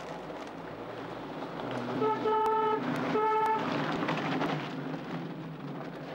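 A car horn sounds twice, a single-note honk of under a second each time, over the steady noise of a car driving up.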